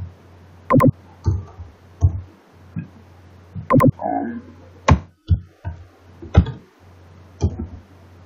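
Irregular, heavy keystrokes and clicks on a computer keyboard, picked up close to the microphone as sharp knocks, over a steady low electrical hum.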